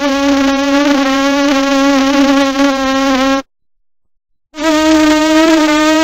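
Mosquito buzzing in flight: a steady, slightly wavering whine that cuts off suddenly about three and a half seconds in and starts again about a second later.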